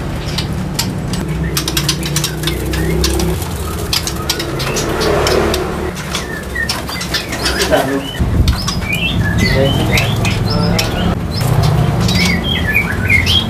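Caged birds: wings fluttering with a run of quick clicks in the first half, low dove cooing underneath, and small birds chirping in short high notes from about eight seconds in.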